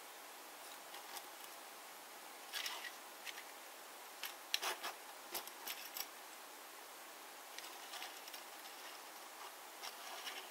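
Faint, scattered clicks and short scrapes of a 1/64 Tomica Suzuki Carry die-cast toy truck being handled and pushed along a toy road by hand, over a steady hiss.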